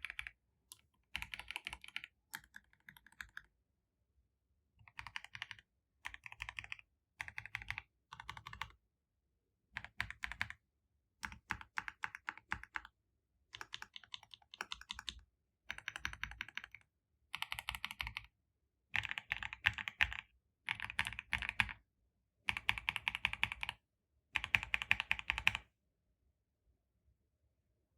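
Keys on a GMK26 26-key macropad with linear switches and thick PBT Cherry-profile keycaps being typed on in quick runs of keystrokes, each run about a second long, with short silent gaps between them.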